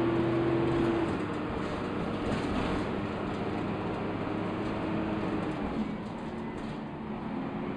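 Dennis Dart single-deck bus on the move, heard from inside the passenger saloon: steady engine and drivetrain running with road rumble and a whine, which stops about a second in and then comes back at other pitches.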